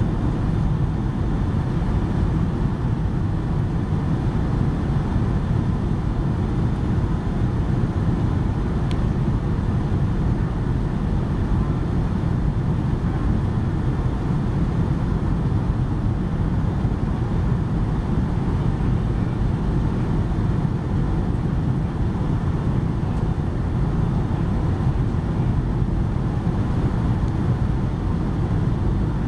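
Steady low rumble of a Boeing 757-200's cabin on approach to landing: engine and airflow noise heard from inside the passenger cabin, even in level throughout.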